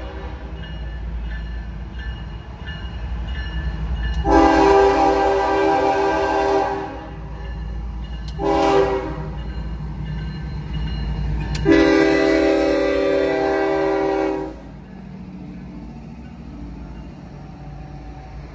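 Union Pacific diesel freight locomotives' air horn sounding the grade-crossing pattern: a long blast, a short one, then a final long blast of about three seconds. Under it is the steady low rumble of the locomotives' engines as they pass.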